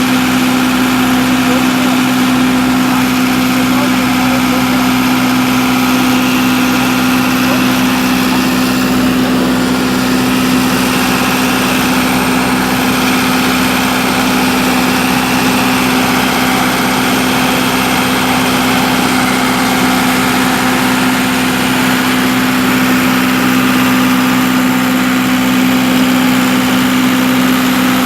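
Engine running steadily at a constant pitch, an even hum that holds without revving.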